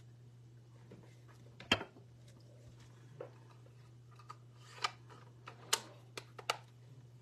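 Scattered light clicks and taps of rubber-stamping supplies being handled and put away, among them an ink pad, over a steady low hum. The sharpest click comes nearly two seconds in, with a cluster of smaller clicks later on.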